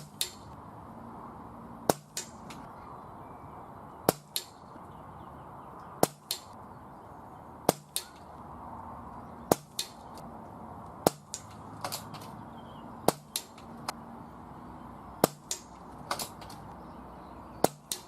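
Air rifle shooting .177 pellets at a steel bell-ringer target, about ten shots roughly two seconds apart. Each sharp shot is followed about a quarter second later by the smack of the pellet striking the steel.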